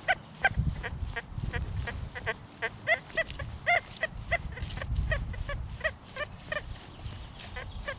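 XP Deus II metal detector giving a rapid string of short, clipped iron tones, several a second, as the coil sweeps a foil-littered curb strip; the foil reads as iron and sets off the tones.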